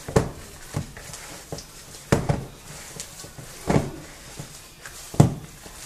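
A hand squeezing and pressing a mashed potato and tuna mixture in a plastic bowl: a series of soft squishes and thumps at irregular intervals, roughly one a second.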